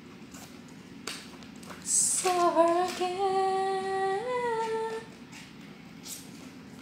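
A woman hums a short tune of a few long, steady notes for about three seconds, stepping up in pitch near the end, while scissors snip through paper with a few short clicks.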